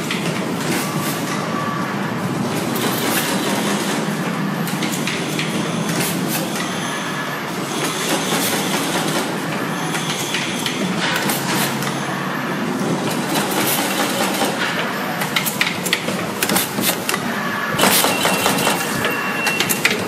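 Automatic flat cable cutting, stripping and crimping machine running, a steady mechanical noise broken by many quick clicks and clacks from its cutting and crimping strokes, busier toward the end. Other wire-processing machines run alongside it.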